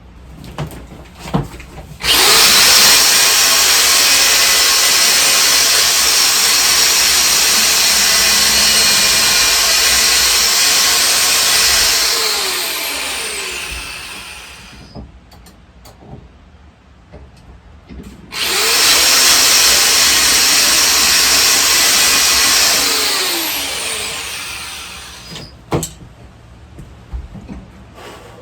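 A power tool runs at full speed for about ten seconds, then spins down over a few seconds with a falling pitch. After a short pause it runs again more briefly and spins down the same way. A few light knocks are heard between the runs.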